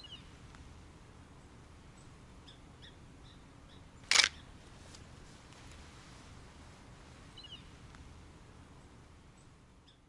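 A DSLR camera shutter fires once: a single short, sharp click about four seconds in. Under it is a faint, steady outdoor background with a few small bird chirps.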